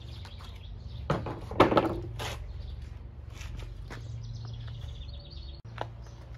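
Outdoor background: a steady low rumble with birds chirping faintly, and a short burst of handling noise, knocks and rustling, between about one and two seconds in, then a single click near the end.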